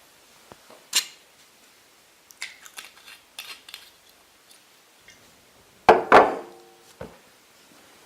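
Hard objects knocking and clinking, like dishes and utensils handled on a surface. There is a sharp knock about a second in, then a run of small clicks, then two loud clattering hits about six seconds in that ring briefly, and a last small click.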